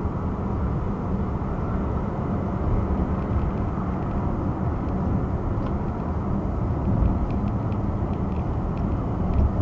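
Steady tyre and engine road noise inside a car cabin cruising on a motorway at about 50 to 60 mph, with a few faint clicks in the second half.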